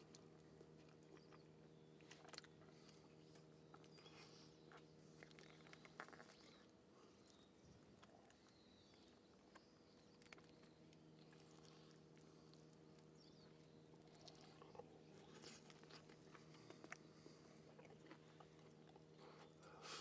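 Faint eating sounds: quiet chewing with scattered small clicks, likely utensils against dishes, over a low steady hum.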